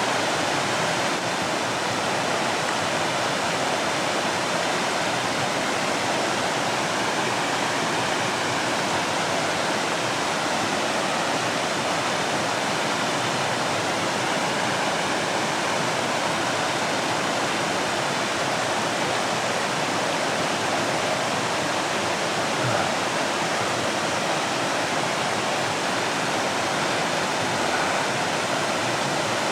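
Small waterfall, water pouring and splashing in a steady, unbroken rush.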